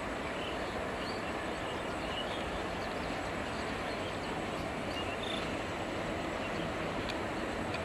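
Diesel locomotive approaching along the track at a distance: a steady engine rumble with rail noise.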